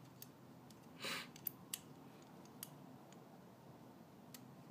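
Faint metallic clicks of AR-15 bolt and bolt carrier parts being handled and fitted together, with a short scrape about a second in and a few separate clicks after it.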